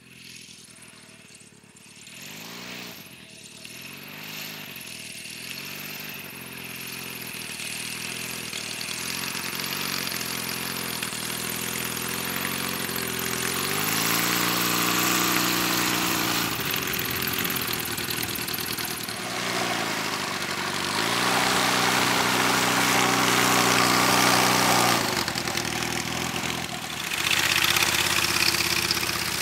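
Light aircraft's propeller engine, growing steadily louder as it approaches. The revs rise and drop back twice, about 14 s in and again from about 21 s.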